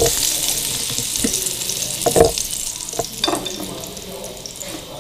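Chicken shashlik skewers sizzling in shallow oil in a nonstick frying pan, the hiss slowly fading toward the end. A few light knocks come as the skewers are handled and lifted out of the pan.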